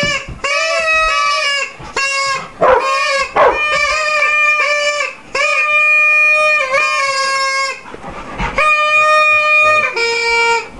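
A person making loud, nasal, long-held 'eeeh' noises at a dog, about seven drawn-out calls of roughly a second each, all on the same high pitch, with short pauses between them.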